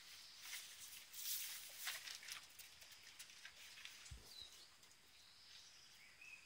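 Faint crackling and rustling of a Labrador retriever tearing at and chewing grass, densest in the first two seconds. About four seconds in there is a soft low thump and a short bird chirp.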